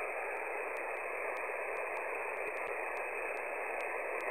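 Shortwave single-sideband receiver on 14.325 MHz in the 20-metre amateur band giving steady static hiss on an open frequency. No station answers the call.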